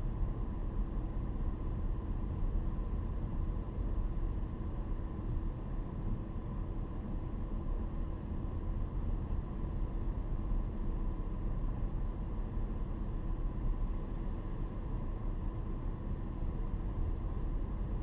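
Steady cabin noise inside a 2012 Ford Fusion Sport with its exhaust resonator removed, cruising: a constant rumble of road and tyre noise with a low hum from the 3.5 L V6 and exhaust. There is no exhaust drone.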